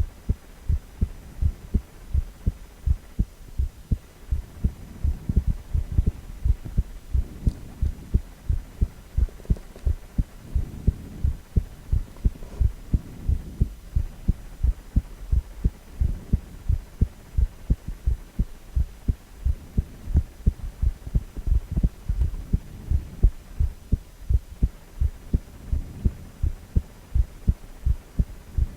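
An adult man's heartbeat, heard during a cardiac ultrasound: steady, regular low thuds with an even beat.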